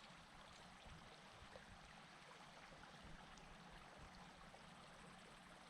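Near silence: only the faint, steady rush of flowing creek water.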